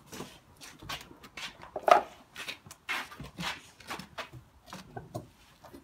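Irregular knocks, bumps and shuffling footsteps as heavy stored items are shifted about, with the loudest knock about two seconds in.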